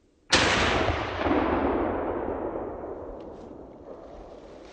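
A single close rifle shot from a .300 short magnum, with its report rolling away as a long echo over the next few seconds.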